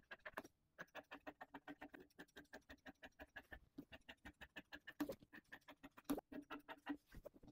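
Tailor's scissors cutting cloth in quick, faint, even snips, about five or six a second, with a few louder clicks past the middle.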